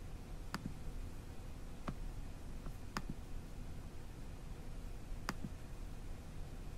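A computer mouse clicking about five times, irregularly spaced, over a low steady hum: the playback speed of a video being changed.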